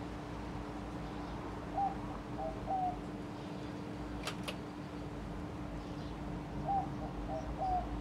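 1988 TAT CFA2PC ceiling fan running with a steady motor hum. Its pull-chain switch clicks twice in quick succession about halfway through, switching the fan to low speed. A bird calls twice in the background, once early and once near the end.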